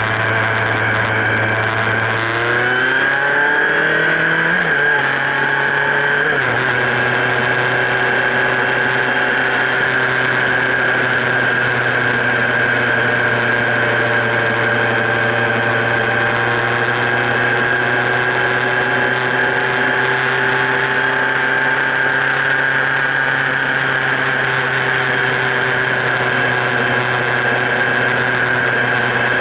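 Motorcycle engine accelerating, its pitch rising for a few seconds and dropping back at a gear change about six seconds in, then holding steady at cruising speed. A constant hiss of wind and wet-road tyre spray runs underneath.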